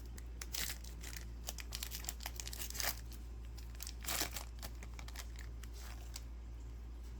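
Foil wrapper of a Pokémon TCG booster pack crinkling and tearing as it is opened, with a few louder rustles; the crackling dies down near the end.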